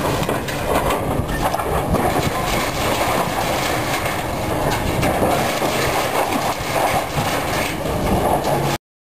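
Heavy demolition excavator at work: a loud, steady rumble with dense clattering, which cuts off abruptly near the end.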